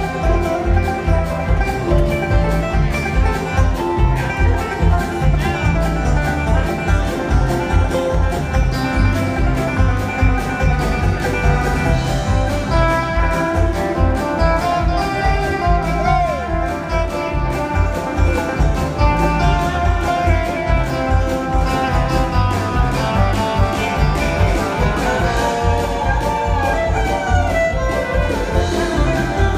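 A jam-grass band playing live in an instrumental stretch: guitar, fiddle and keyboard over bass and drums, with a steady driving beat.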